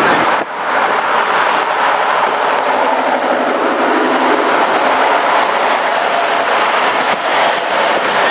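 Steady rushing road and wind noise of a car driving at highway speed, with a brief dip about half a second in.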